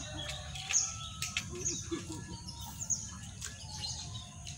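A bird chirping over and over: short, high notes that fall in pitch, about one a second. A few sharp clicks are heard along with it.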